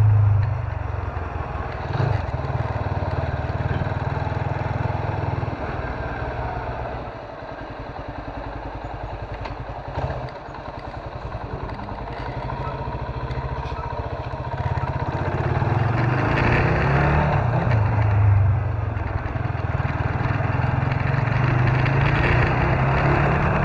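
Small motorcycle engine running while riding, with wind and road noise. It eases off and grows quieter about a third of the way in, then picks up again in the second half.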